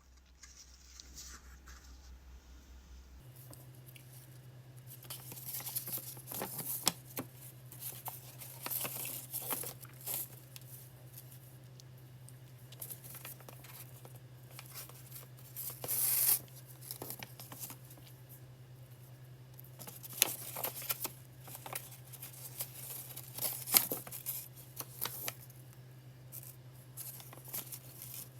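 Paper being handled: crinkling and rustling in short, irregular bursts, with a louder tearing rip about 16 seconds in.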